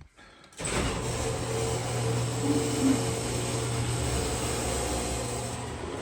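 A motor or engine running steadily with a low hum, starting abruptly about half a second in.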